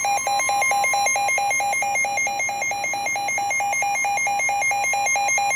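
Weather radio alert: a receiver's alarm beeping rapidly, about five beeps a second, over the steady 1050 Hz warning alarm tone of NOAA Weather Radio. This signals an incoming warning.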